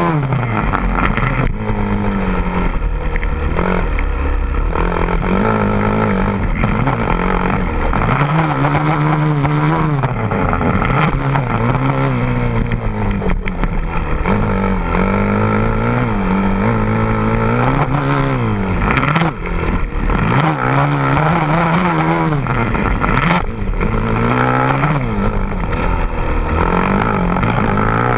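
A vehicle engine running loud, revved up and down over and over, its pitch rising and falling every second or two.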